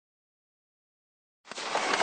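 Dead silence, then near the end fireworks start up: a hiss and crackle that grows louder, with a couple of sharp pops.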